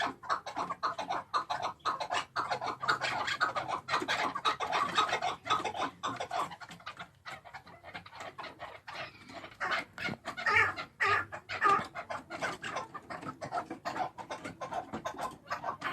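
Chukar partridge calling, a long run of rapid clucking notes that dips for a moment and picks up again, loudest a little past the middle.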